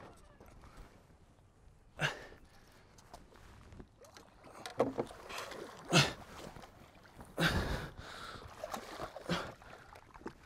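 A big largemouth bass splashing and thrashing at the surface while being fought to the boat, heard as about five short bursts of splashing and knocks spread over several seconds.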